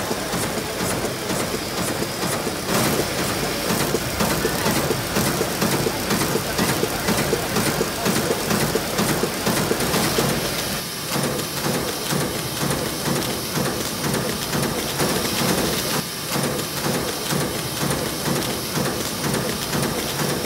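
Omori high-speed box-motion flow-wrapping machine running at production speed: a steady, fast rhythmic mechanical clatter of the wrapper and its conveyors, changing in character about halfway through.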